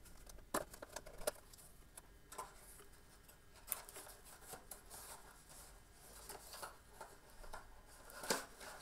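Cardboard product box being opened and handled by hand: faint scattered rustles, scrapes and small taps of the flaps and insert, the sharpest tap near the end.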